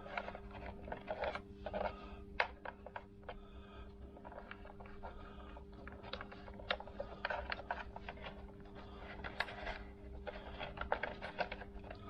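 Hands working on scooter wiring: a run of small clicks, taps and scrapes as the wiring loom and HT lead are pushed into place, over a steady low hum.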